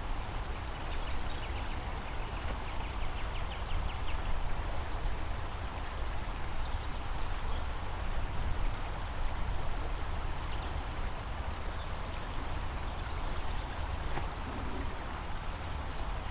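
Steady rushing of a fast-flowing river, swollen and pushing through after heavy rain, over a constant low rumble.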